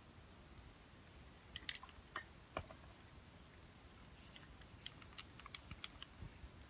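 Aerosol spray paint cans: a few sharp clicks and knocks, then from about four seconds in several short hissing bursts of spray mixed with more clicks.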